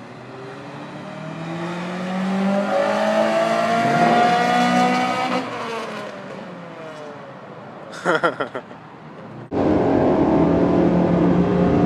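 Drag-racing cars accelerating away down the strip, the engine note climbing for about four seconds and then falling and fading as they pull away. After an abrupt cut, car engines idle steadily at the starting line.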